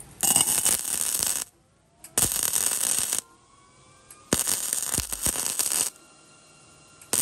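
Flux-core wire-feed welder arc crackling in three short bursts of about a second each, with pauses between: short trigger pulls that fill a pinhole in a weld layer by layer.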